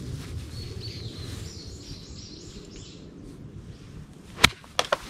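Golf iron striking the ball about four and a half seconds in: one sharp crack, the loudest sound, followed by two quieter clicks. Before it, faint birdsong and wind on the microphone.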